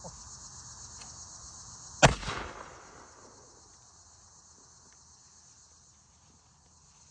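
Black-powder muzzleloading shotgun fired once about two seconds in: a sharp report with a rumbling tail of about half a second. A steady chorus of crickets runs underneath.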